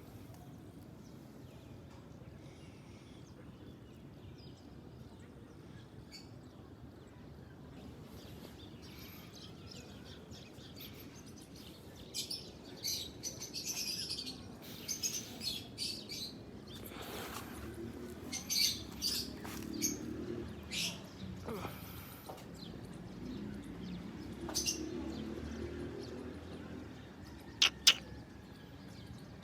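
Small birds chirping: many short high calls that start about a quarter of the way in and grow more frequent and louder.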